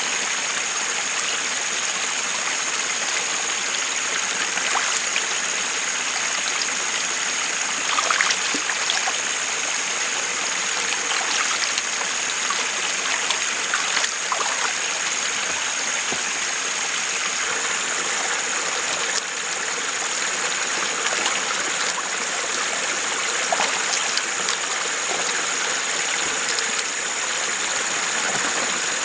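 Water splashing and sloshing as a cassava root is scrubbed and rinsed by hand to wash off the soil, with a few sharper splashes, over a steady rush of flowing water.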